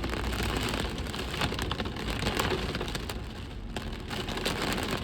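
Steady rain falling, heard from inside a car.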